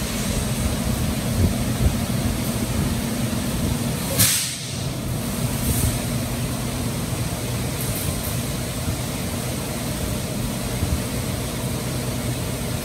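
Automated truck wash running on a semi tractor: a steady mechanical hum under a rushing noise, with one sharp burst of hiss about four seconds in.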